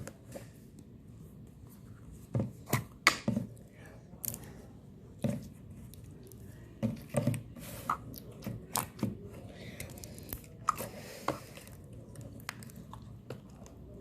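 Slime being handled, with irregular sharp clicks and pops.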